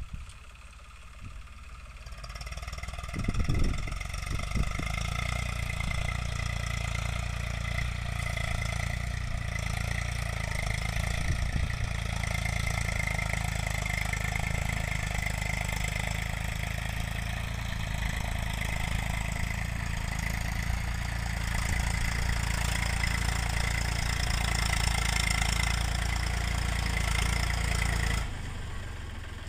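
Eicher 380 tractor's three-cylinder diesel engine running steadily under load as it pulls a cultivator through ploughed soil, growing louder over the first few seconds as it draws closer. A brief low thump comes about three and a half seconds in, and the engine sound drops off suddenly near the end.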